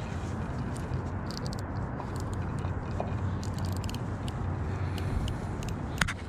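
A steady low outdoor rumble, with a few short runs of light clicks from a spinning fishing reel being handled and one sharper click near the end.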